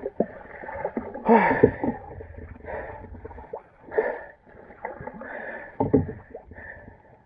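Water splashing and sloshing around a capsized pedal kayak, in irregular bursts with a low rumble over the first half.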